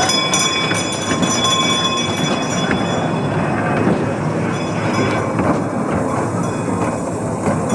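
Miniature ride-on train running along its track, a steady noise of the wheels rolling on the rails. Thin high tones sound over it and fade out about three seconds in.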